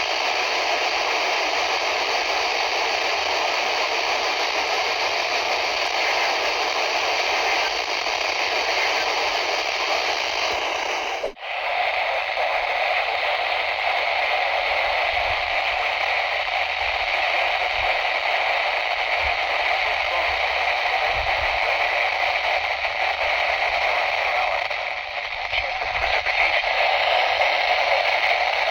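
Radio static: a steady hiss from a weather radio receiver on a weak signal, cutting out for an instant about eleven seconds in.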